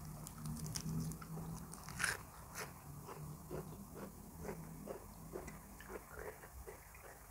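A person chewing crunchy food close to the microphone, mouth sounds coming about twice a second, with one louder crunch about two seconds in.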